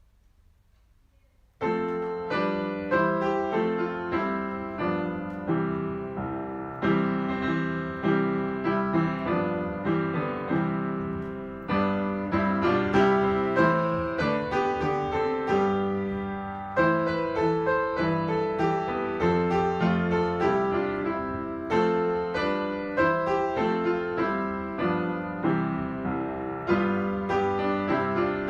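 Piano music beginning about a second and a half in: the accompaniment for the school song, played back.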